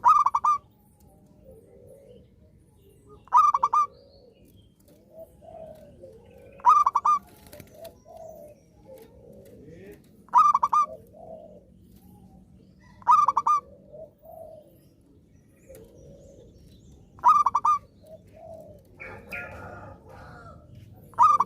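Zebra dove (perkutut) singing: a loud burst of quick cooing notes repeated about every three to four seconds, seven times, with softer, lower coos in between.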